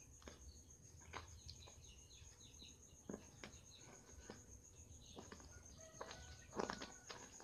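Near silence: room tone with a faint, steady high-pitched trill and a few soft clicks.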